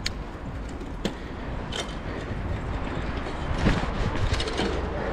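Mountain bike rolling over stone paving slabs: a steady low rolling rumble, with a few sharp clicks and a short run of rattling clicks about four seconds in.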